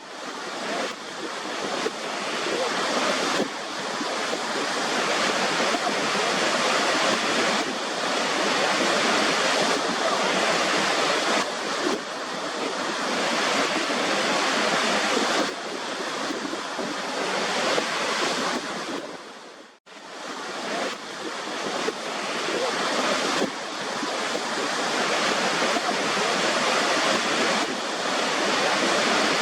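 Waterfall water rushing in a steady, dense hiss. About two-thirds of the way through it cuts out for an instant and then returns.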